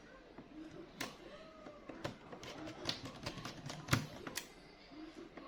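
Scattered sharp clicks and small taps of a screwdriver and hand tools working on a laptop's plastic bottom cover as its screws are driven back in, about five distinct clicks spread over a few seconds.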